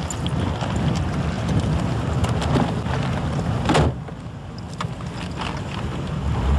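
A steady low rumble like a vehicle running, with scattered clicks and one sharp knock nearly four seconds in, after which the rumble drops quieter.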